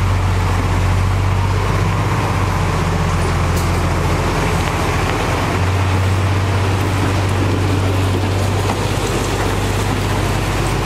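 Diesel engine of heavy road-construction machinery running steadily at close range, with a strong low engine hum that dips briefly about five seconds in before it returns.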